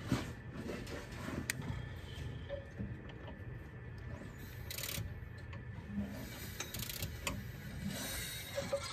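Scattered clicks and a few short rasps from a half-inch ratchet on the crankshaft bolt, turning a Ford 2.8 V6 over by hand a little at a time to bring each valve to full lash.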